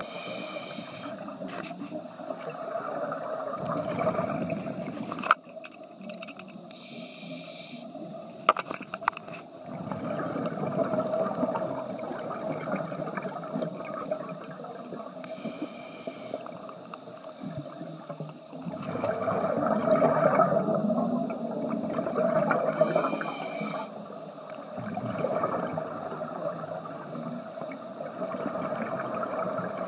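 A scuba diver's regulator breathing underwater: a short hiss on each breath about every seven or eight seconds, with the rumbling gurgle of exhaled bubbles in between.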